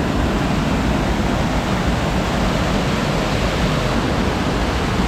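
Waterfall rushing: a steady, loud, even wash of falling water.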